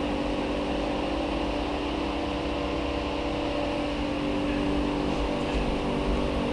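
Steady mechanical hum of workshop machinery, holding several even tones with no change in level or pitch.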